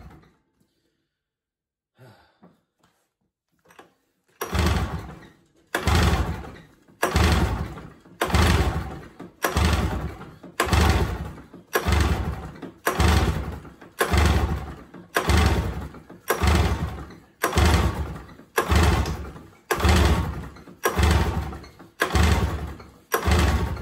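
A Polaris 770 big bore two-stroke snowmobile engine being cranked over by hand with its pull starter. After a few quiet seconds the pulls start, about one every second, each a sharp start that fades, on and on without the engine catching. It is not picking up fuel, which the owner puts down to a disconnected pulse line.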